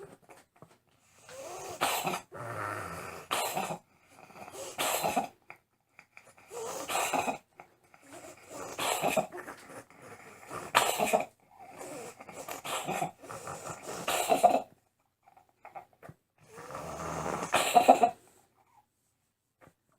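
A domestic cat's laboured, wheezing breaths, one about every two seconds with a short pause near the end. The noisy breathing is the sign of an airway narrowed by a tumor in the back of the throat.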